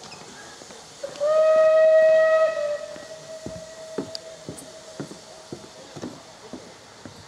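Steam locomotive whistle: one loud, steady blast of about a second and a half that then dies away. It is followed by faint, regular knocks about twice a second.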